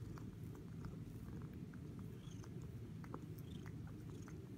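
Calico kitten grooming itself, its tongue making soft licking ticks several times a second over a steady low purr.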